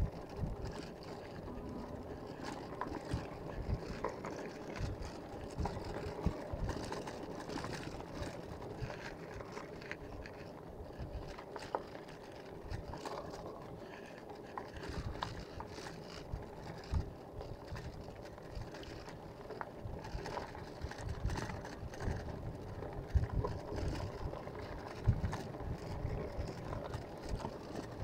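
Wind buffeting the microphone over steady road noise while riding along a paved road, with irregular low thumps that grow more frequent near the end.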